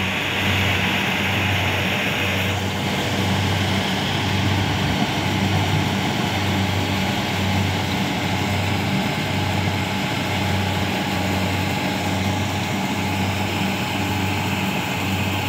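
Kubota PRO688Q tracked combine harvester running steadily while cutting and threshing lodged rice, its diesel engine drone swelling about once a second.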